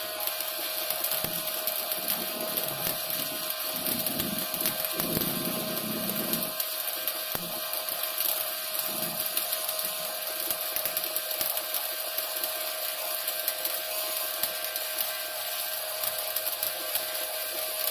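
Shielded metal arc welding with an E6013 electrode on carbon steel pipe, laying the hot pass: the arc keeps up a steady crackling, frying hiss.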